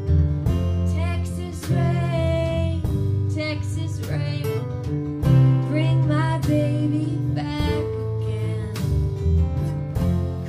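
Two acoustic guitars playing a slow country-folk song live, strummed chords under picked notes.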